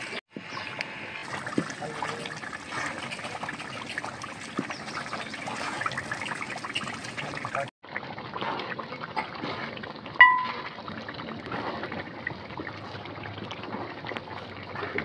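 Halwa mixture bubbling and sizzling in hot oil in an iron karahi, with a wooden spatula stirring and scraping through it: a steady crackly, bubbling texture that cuts out briefly twice. A short ringing tone sounds about ten seconds in.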